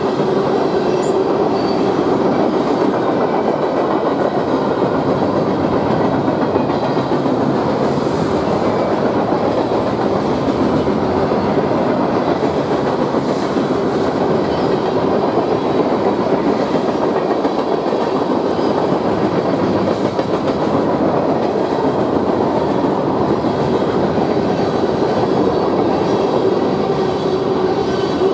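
Freight train cars rolling steadily past, a loud continuous rumble of steel wheels running on the rails.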